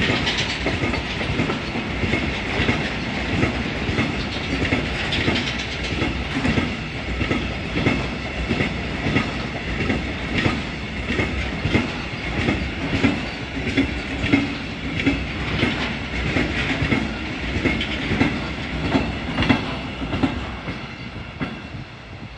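Freight train of loaded car-carrier wagons rolling past at close range, the wheels clicking steadily over rail joints above a continuous rolling hiss. The sound falls away near the end as the last wagon passes.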